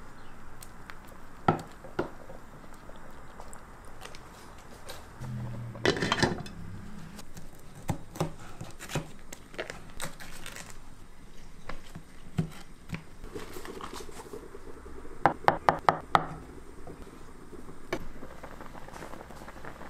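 Kitchen prep on a wooden cutting board: scattered knocks and utensil clatter, then a quick run of about six sharp knife strokes on the board about three-quarters of the way in.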